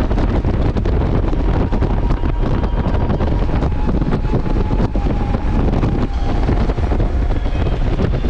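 Steady wind rush buffeting the microphone on a Honda Gold Wing 1500 touring motorcycle at highway speed, with the bike's flat-six engine and tyre noise running underneath.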